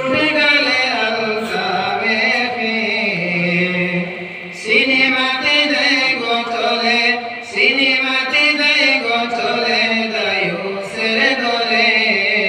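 A man singing a Bengali Islamic ghazal (gojol) into a microphone, with long held notes that waver in an ornamented melody. There is a short pause for breath about four seconds in.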